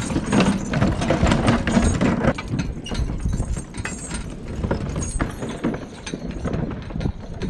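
Team of Percheron draft horses pulling a snow roller over packed snow: irregular hoofbeats and knocks over the low rumble of the rolling drum.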